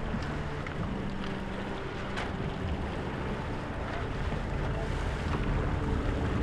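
Wind buffeting the microphone over choppy water, with waves splashing against the hulls of Star-class keelboats sailing through the chop. A few brief sharp knocks stand out from the rush.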